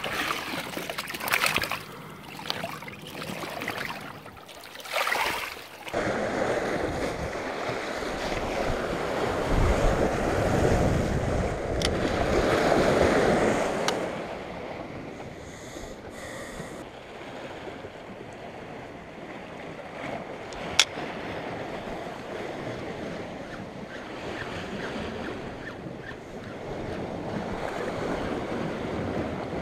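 Wind buffeting the microphone over sea surf washing against a rocky shore, swelling and easing. A few brief rustling bursts come in the first seconds, and a single sharp click about two-thirds of the way through.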